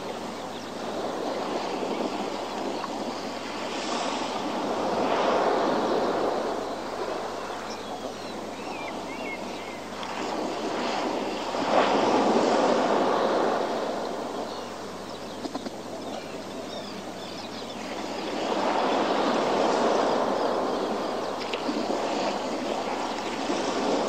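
Sea waves surging against a rocky shore below cliffs, the wash swelling and falling back three times, roughly every seven seconds.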